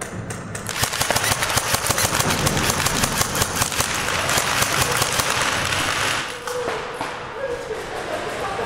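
Airsoft guns firing rapid full-auto bursts, many shots a second, densest until about six seconds in and then thinning to scattered shots.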